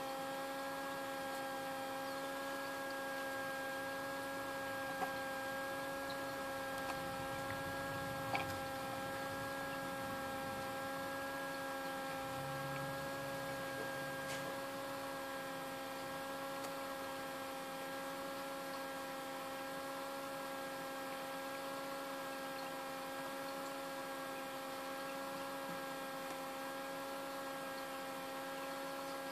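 Small egg incubator's fan motor humming steadily at one constant pitch, with a couple of faint ticks about five and eight seconds in.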